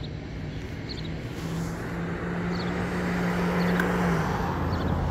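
A motor running with a steady low hum, growing gradually louder.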